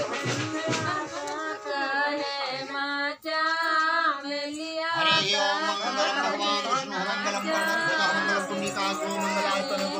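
Women singing a song with long held notes; a steady low tone joins about five seconds in.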